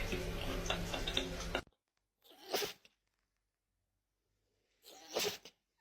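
A dog sneezing twice: two short, sharp sneezes about two and a half seconds apart, each with a brief lead-in. Before them, a loud steady rushing noise with a low hum cuts off suddenly under two seconds in.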